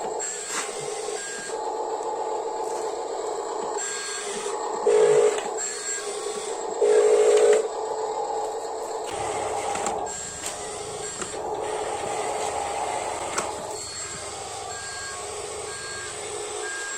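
Small electric motors and gearboxes of radio-controlled toy construction models whirring steadily while working sand. The whir swells into louder bursts about five seconds in and again around seven seconds.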